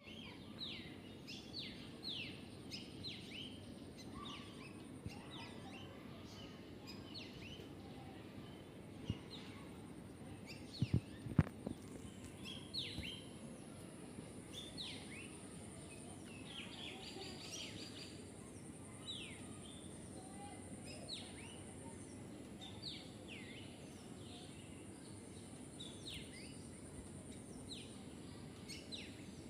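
Chicken chicks peeping over and over, each peep a short falling chirp, over a steady high-pitched whine. A few sharp knocks come about eleven seconds in.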